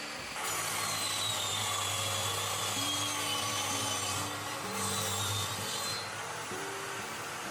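A power saw cutting through a wooden board. The motor hum and the blade's whine start about half a second in and ease off near six seconds.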